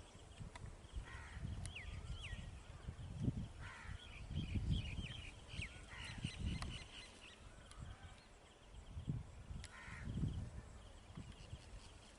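Crows cawing a few times among short chirps from smaller birds, with a few dull low bumps.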